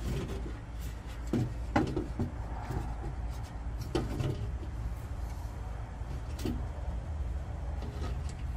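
A small metal-framed, glass-topped patio table being handled and turned upright on a wooden deck: a few scattered knocks and clunks, the loudest a little under two seconds in and again about four seconds in.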